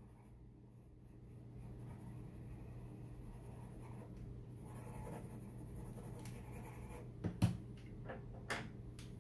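Coloured pencil scratching softly on paper as a drawing is shaded in, over a steady low hum. A few light knocks come near the end, the loudest about seven seconds in.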